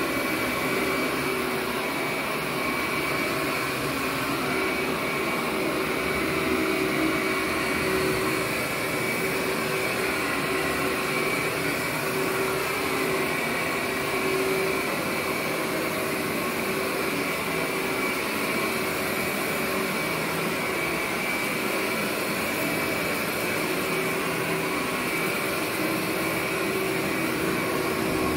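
Workhorse upright vacuum cleaner running steadily while being pushed over carpet: an even rush of air with a constant motor whine.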